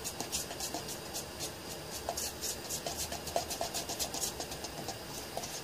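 Chip brush stirring polyester laminating resin and hardener in a cup, its bristles scraping around the cup in quick repeated strokes, several a second.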